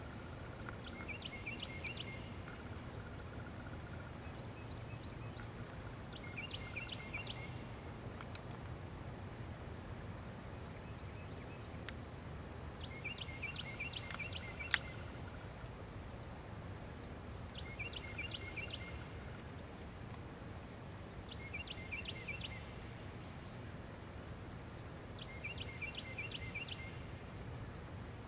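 A songbird repeating a short phrase of four or five quick notes about every four seconds over a steady low background rumble, with faint high chirps in between and a single sharp click about halfway through.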